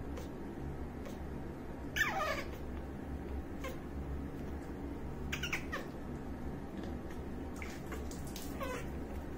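Newborn monkey crying while being bathed: a few short, high squeals that slide down in pitch, the loudest about two seconds in and the last near the end.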